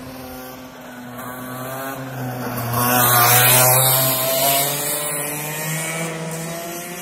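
Two-stroke racing kart engine passing close by at speed, its note swelling to a peak about three seconds in and then fading as it drives away.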